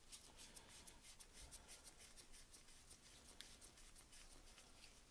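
Faint, irregular small ticks and scraping of a screwdriver tightening the screws on a motorcycle engine's oil pump cover plate, barely above near silence.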